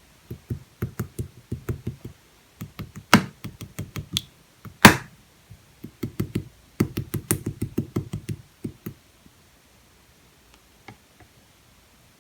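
Clear slime being poked and pressed by hand in quick runs of soft, squishy taps, with two sharp, louder pops about three and five seconds in. The handling stops after about nine seconds, leaving a few faint clicks.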